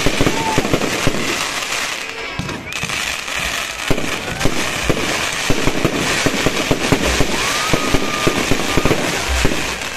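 Fireworks going off: a dense, continuous crackle of many rapid pops and bangs, with a few faint whistles gliding through it.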